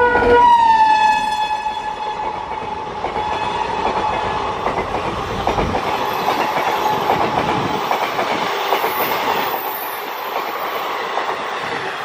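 Electric locomotive's horn sounding as it passes at speed, its pitch dropping as it goes by, then fading out about five seconds in. After that comes the rushing rattle and clickety-clack of the express coaches' wheels going past.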